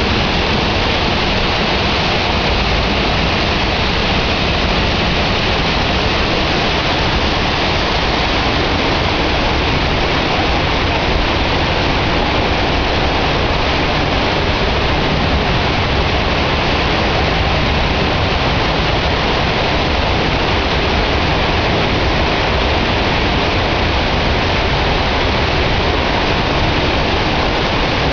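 Buracão waterfall: a steady, loud rush of falling water that does not change.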